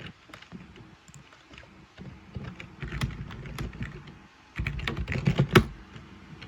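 Typing on a computer keyboard: runs of quick key clicks, one cluster about two to four seconds in and a louder cluster around five seconds in.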